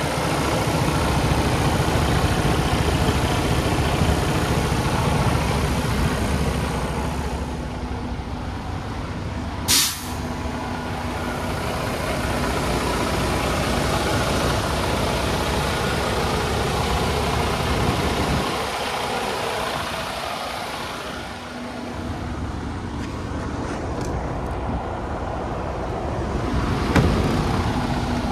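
Freightliner Cascadia semi truck's diesel engine idling steadily, heard close up from the engine bay and chassis, with one short sharp hiss of air about ten seconds in.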